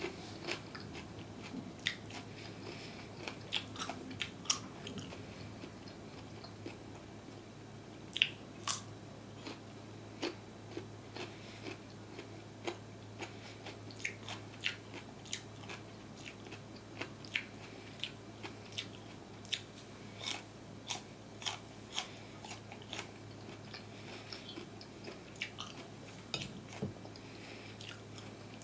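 Close-miked eating: crisp food being bitten and chewed, with sharp crunchy clicks about once or twice a second.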